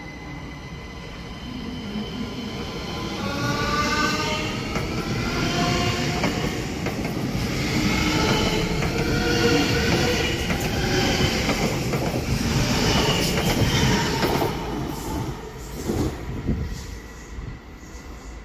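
ÖBB Cityjet (Siemens Desiro ML) electric multiple unit passing along a station platform: a rolling rumble with several whining tones that rise and fall. It builds about two seconds in, is loudest as the train goes by, and fades near the end as it draws away.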